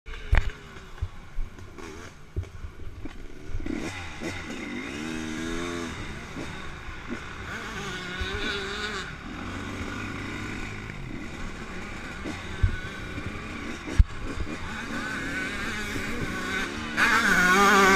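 Off-road engines revving, rising and falling in pitch, with a few sharp thumps on the microphone.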